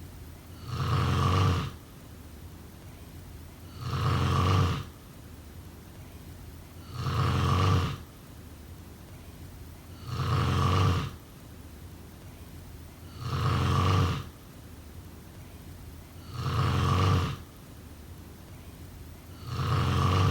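Snoring in a slow, even rhythm: seven snores, one about every three seconds, each lasting about a second with a low rumble. A faint steady hiss fills the gaps between breaths.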